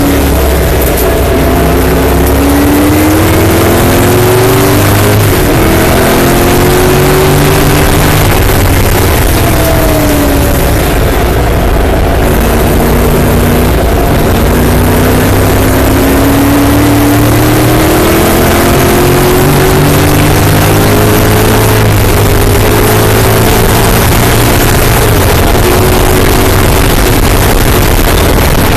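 A TVR Griffith race car's Ford V8, heard from inside the cockpit, running hard at racing speed. The pitch climbs under acceleration and drops at each gear change, several times over, above a steady rush of wind and road noise.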